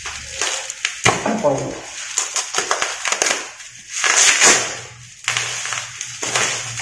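Plastic packaging crinkling and rustling as it is pulled open by hand, with a sharp snap about a second in and a louder, longer crinkle around four seconds in.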